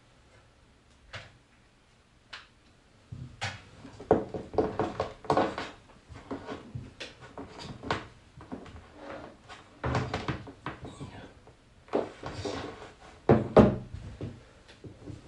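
Cables and plugs being handled and connected at a desk: irregular knocks, clicks and rustling, starting about three seconds in and busiest near the end.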